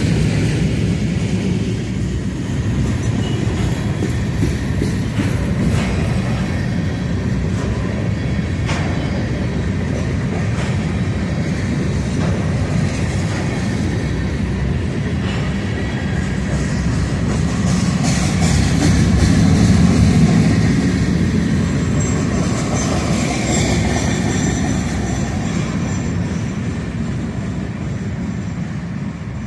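Long freight train of empty covered hopper cars rolling past at low speed, a steady rumble with wheels clicking over rail joints. A thin, high wheel squeal comes in briefly about two-thirds of the way through.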